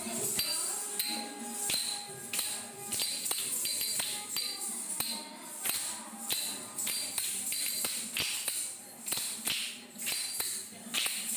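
Music for a classical Indian dance, with a steady rhythm of metallic jingles and sharp taps.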